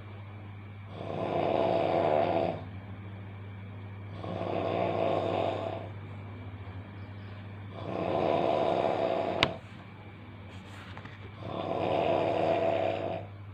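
A sleeping person snoring loudly in a slow, steady rhythm: four long, rasping snores about three and a half seconds apart. A single sharp click sounds at the end of the third snore, over a steady low hum.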